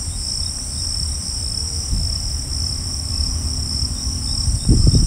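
Insects trilling steadily in an even, high-pitched pulse over a low rumble, with a short low thump near the end.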